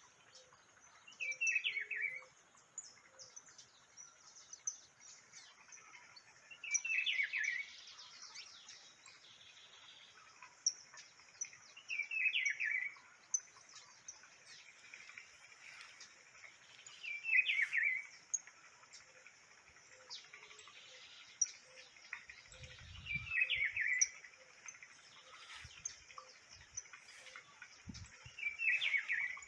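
A songbird singing the same short phrase six times, about once every five seconds, each phrase lasting about a second. Faint, constant high chirping of other birds or insects runs underneath.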